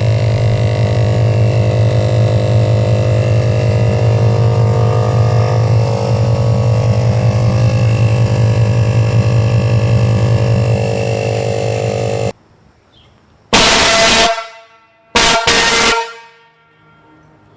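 Homemade air horn, made of truck air horns fed from an old fire extinguisher used as the air tank, blowing one long steady blast of about twelve seconds. The blast is a deep tone with many overtones and cuts off suddenly. Two short, hissy blasts follow about a second and a half apart.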